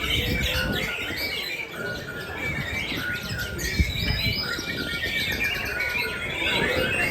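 Many caged songbirds singing at once, a dense overlapping mass of chirps and trills, with a single sharp knock near the middle.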